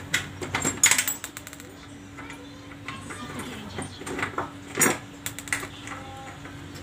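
Metal clicks and clinks of hand tools and bolts being worked at the fuel-pump flange on top of a motorcycle fuel tank, a quick run of them about a second in and another near the five-second mark, over a steady low hum.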